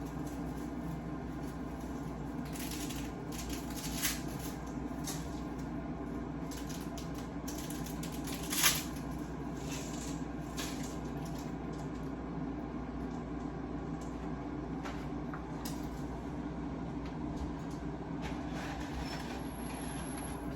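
Steady hum of an air fryer running, with scattered kitchen clatter: clicks and knocks of things being handled, the sharpest knock about eight and a half seconds in.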